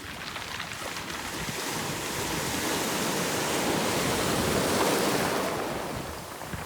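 A sea wave washing up a pebble beach and drawing back over the stones. It swells for a few seconds and fades near the end.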